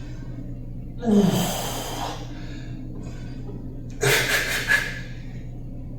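Two heavy, forceful exhalations by a man exerting himself in a weight workout, about a second in and again about four seconds in, the first with a falling pitch of voice. A steady low hum lies underneath.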